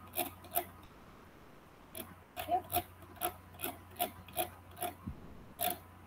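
A run of short, sharp clicks, about two to three a second, from working the computer to scroll through the slides. The clicks pause for about a second and a half near the start, then carry on steadily. A faint steady mains hum sits underneath.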